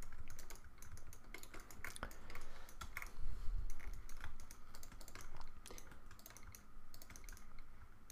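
Computer keyboard keys pressed in short, irregular runs of clicks as modeling shortcuts are used.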